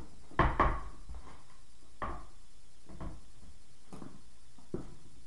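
Irregular knocks and taps of a skateboard deck and tools being handled during setup, a sharp pair about half a second in and lighter ones about once a second after.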